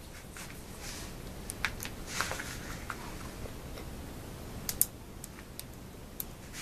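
A few faint, scattered clicks and light rustling over a steady low room hum, the sharpest pair of clicks about three-quarters of the way through.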